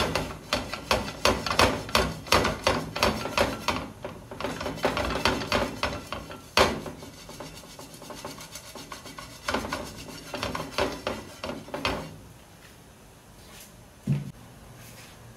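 A pastry brush stroking butter across a non-stick frying pan to grease it against sticking: quick, rhythmic scrubbing at about three strokes a second, coming in bursts, with a single sharp knock midway. The brushing stops about twelve seconds in.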